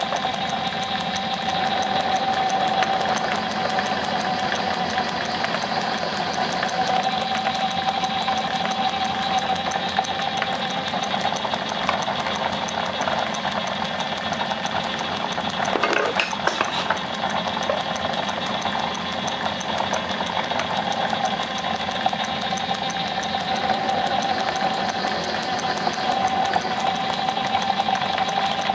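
Drill press running steadily with a constant tone while drilling centre holes through rubber hockey pucks, with a brief noisier moment about sixteen seconds in.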